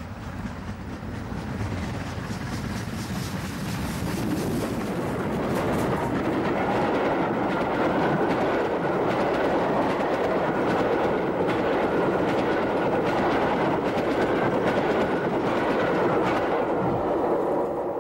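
Double-headed steam train, the GWR 4-4-0 City of Truro piloting the 4-6-0 King George V, approaching and passing close by. The coaches' wheels clatter over the rail joints in rapid clicks. The sound builds over the first few seconds, holds steady, and dies away at the very end.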